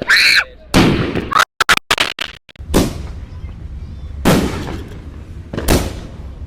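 Fireworks going off: four sudden loud bangs about one and a half to two seconds apart, each trailing off. A short high-pitched squeal is heard at the very start.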